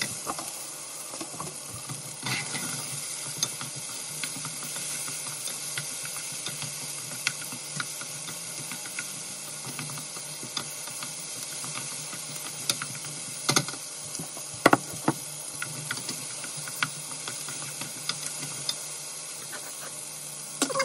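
Chopped onion and tomato sizzling in a nonstick frying pan, stirred with a wooden spoon that clicks and taps against the pan now and then, over a steady low hum. The loudest taps come a little past the middle.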